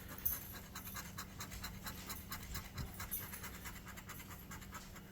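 Scratch-off lottery ticket being scratched, rapid short strokes rasping off the coating to uncover the numbers.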